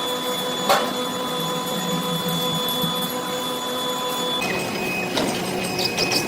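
Workshop machinery running with a steady whine of several held tones, a sharp knock about a second in, and the pitch of the whine changing a little over four seconds in.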